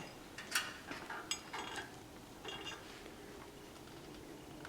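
A few faint, light clicks and taps, mostly in the first couple of seconds and then dying away: sunflower seeds being picked at and moved on a hard surface.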